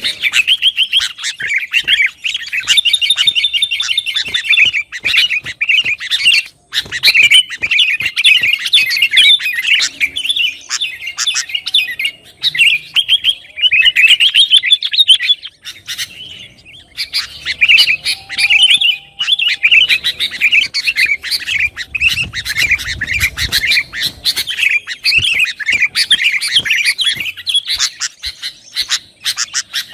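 Sooty-headed bulbul (kutilang) calling noisily, a dense run of quick, chattering notes with a short pause about halfway through.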